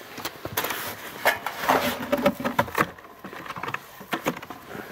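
Handling noise: scattered clicks, knocks and rustles as a handheld camera is moved about.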